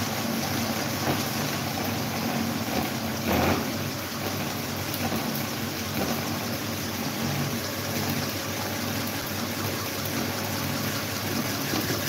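Several electric fans running at once: a steady motor hum under a constant rush of air from the spinning blades. A brief louder thump comes about three seconds in, and a few faint clicks from the push-button speed switches being pressed.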